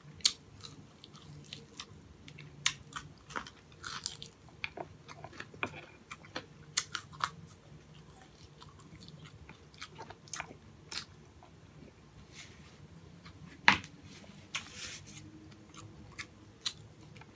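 Close-up mouth sounds of a person biting and chewing breaded fried pork chop: irregular sharp crunches and wet chewing clicks, with the loudest crunch about fourteen seconds in.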